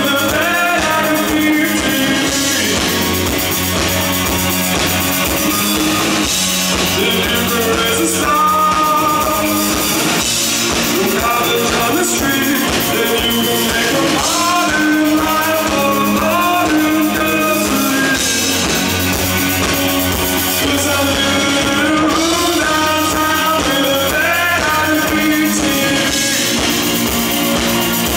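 A rock band playing live: electric guitar, bass guitar and drum kit, with a male lead vocal singing over them.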